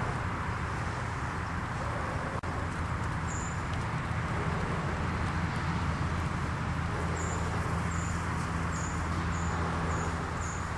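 Steady outdoor rumble and hiss with a low hum underneath. In the second half a small bird gives a run of short, high chirps, about two a second.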